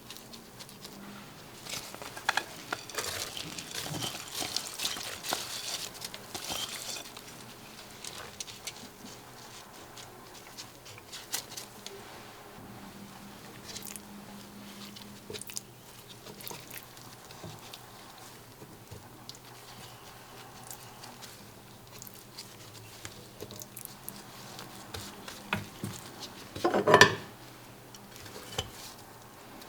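Kitchen handling sounds: a patter of small taps, clicks and rustles, busiest in the first several seconds, with one louder short clatter near the end.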